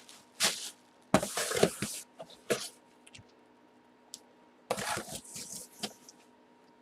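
Several short bursts of rustling and handling noise, separated by quiet gaps.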